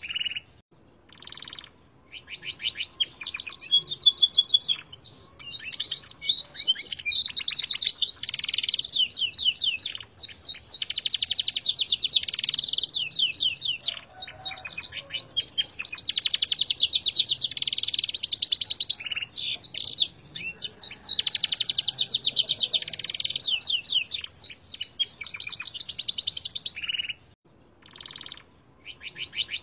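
Gloster canary singing a long song of rapid trills and high notes filled with red siskin phrases, learned from a red siskin tutor recording. The song runs in long stretches, with short pauses about a second in and near the end.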